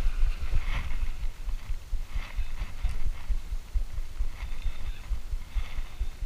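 Wind buffeting the microphone of a body-worn camera, giving an uneven low rumble and thumps, with fainter intermittent whirring and rustle from a spinning reel being wound in to retrieve a lure.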